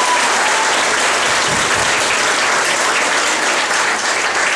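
Crowd applauding steadily after a band's results are announced, a dense mass of many hands clapping.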